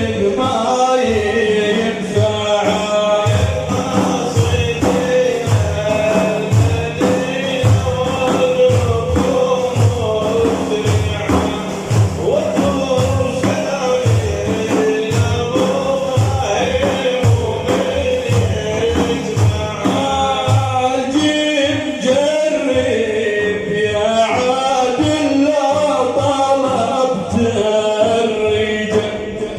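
Male voices chanting devotional praise of the Prophet (madih) in unison, over a steady, regular beat of frame drums.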